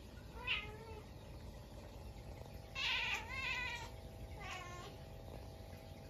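Domestic cat meowing three times: a short call about half a second in, a longer, louder one around three seconds, and a shorter one near five seconds.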